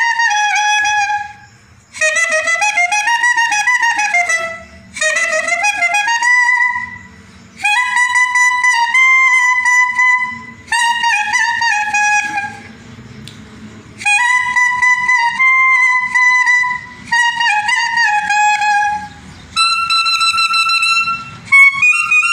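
Solo clarinet playing a melody, alone, in phrases of a few seconds broken by short pauses for breath.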